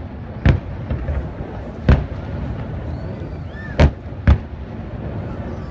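Aerial firework shells bursting: four sharp booms, the last two close together near the end, over a steady low background rumble.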